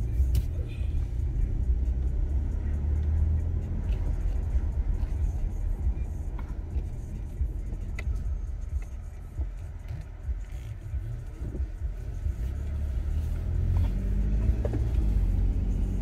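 Car driving on a residential road, heard from inside the cabin: a steady low engine and road rumble that eases off for a few seconds midway and picks up again near the end.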